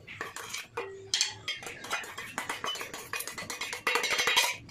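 Steel spoon clinking and scraping in a steel bowl as salt is spooned out, with a longer, denser scrape about four seconds in as the salt is tipped from the bowl.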